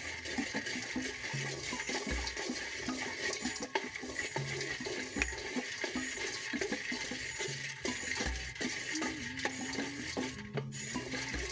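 Peanuts rattling and scraping as they are stirred while dry-roasting in a pan, nearly done, with a steady hissing rush under scattered small clicks. Soft background music runs beneath, with a low note repeating about every two seconds.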